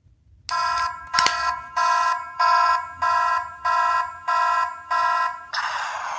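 A miniature sound-making capsule toy plays an electronic alarm-like beeping: eight short multi-tone beeps, about one and a half a second, with a sharp click about a second in. Near the end the beeps give way to a hissing electronic sound that begins to fade.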